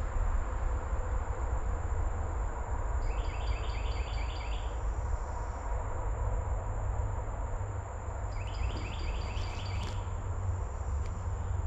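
Woodland insects: a steady high-pitched drone, with two short runs of quick repeated chirps, one about three seconds in and one near the end. Under them runs a low steady rumble.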